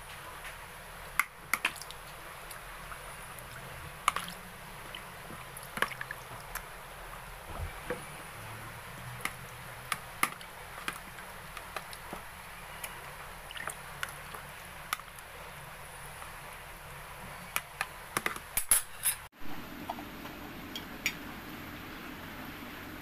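Metal spoon stirring chicken pieces in a liquid marinade in a bowl: scattered clicks and light knocks of the spoon against the bowl and wet sloshing of the sauce, with a quick run of knocks near the end.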